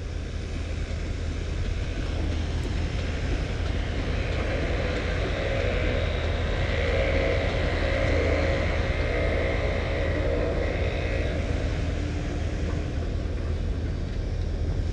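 Motor-vehicle noise: a steady low rumble, with one vehicle passing that grows louder and fades away in the middle.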